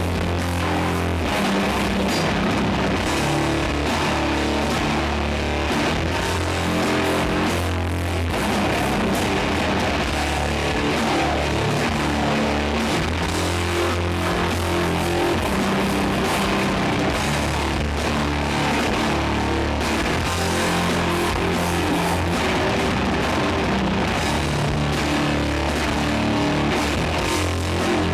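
Doom metal band playing live: heavily distorted guitars and bass hold long, slow low chords over drums, loud and dense throughout.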